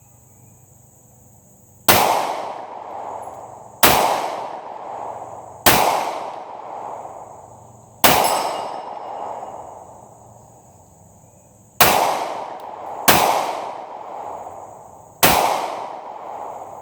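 Seven gunshots fired one at a time, about one to four seconds apart, each followed by a long echo that fades out over a second or more. The shots are aimed low at a steel AR500 gong, which mostly goes unhit.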